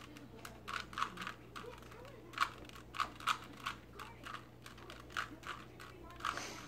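Plastic layers of a Rubik's Cube clicking as they are twisted by hand, in quick, irregular runs of sharp clicks.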